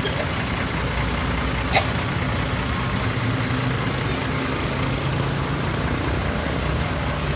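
Bus engine idling steadily, with one brief sharp click about two seconds in.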